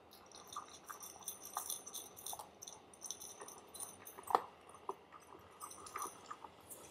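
Golden retriever puppy eating dry puppy food from a bowl: faint, irregular crunching with small clicks of kibble against the bowl, and a sharper knock about four seconds in.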